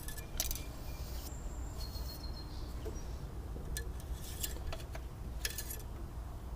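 Small birds chirping, a few short high calls and whistled notes, over a steady low rumble.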